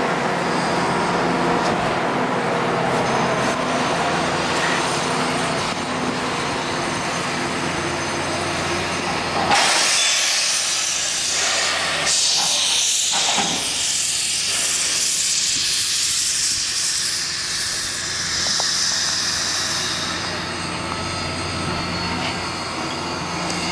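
Steam locomotive 734, a 2-8-0, with a steady low running sound; about ten seconds in a loud hiss of escaping steam starts suddenly and lasts about ten seconds before easing off.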